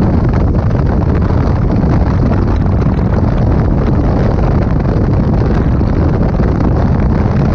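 Bass boat running across open water: a steady outboard motor and hull-and-water noise, under heavy wind rumble on the microphone.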